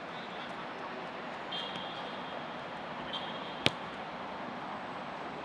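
A football being kicked: one sharp smack about three and a half seconds in, over steady outdoor background noise. Two short high-pitched sounds come before it.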